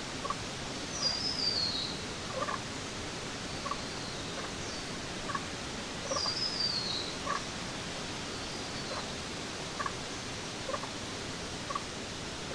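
Jungle ambience: a bird sings a quick, high, descending stepped trill twice, about five seconds apart, with fainter answering phrases. Scattered short calls sound over a steady background hiss.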